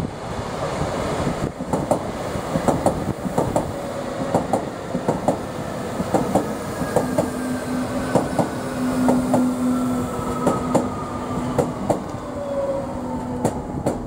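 Berlin U-Bahn H-series train running past, its wheels clicking over the rail joints in quick pairs. A steady hum comes in midway, and a whine falls slowly in pitch through the second half.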